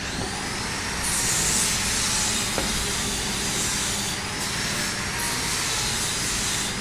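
Power tool motor spinning up with a whine that rises over the first second, then running with a steady loud hiss that grows brighter about a second in, as if it has met the wood.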